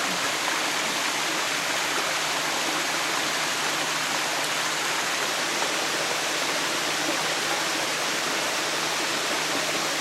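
Su-Uchhan waterfall and its mountain stream: a steady, even rush of water pouring over rocks.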